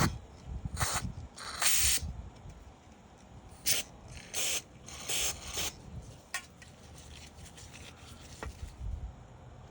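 Short hissing spray bursts while a carburetor is being cleaned, about seven in the first six seconds, the one near two seconds in the longest. Fainter small clicks of parts being handled follow.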